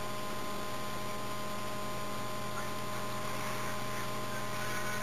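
Steady electrical mains hum with a constant hiss, several fixed tones held unchanged.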